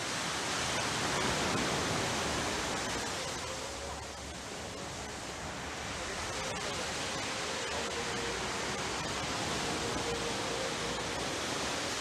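Sea surf breaking and washing up a rocky shore: a steady hiss that swells near the start, eases off about a third of the way through, and builds again.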